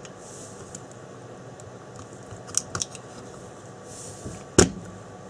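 Small clicks and taps of a bundle of rechargeable battery cells, joined by metal strips, being pressed down into a plastic drill battery housing. There are a couple of quick clicks about two and a half seconds in and one sharper knock near the end.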